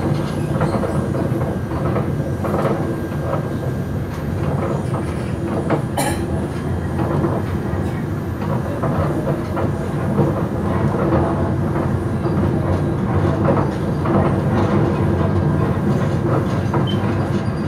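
Passenger train carriage heard from inside while running: a steady, even rumble of the car on the rails with light rattles, and one sharp click about six seconds in.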